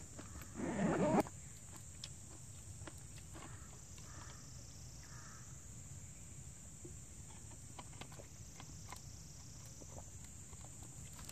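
Faint steady insect chorus, a continuous high buzzing. About a second in comes a brief loud rustle of a plastic water bottle being handled, followed by a few small handling clicks.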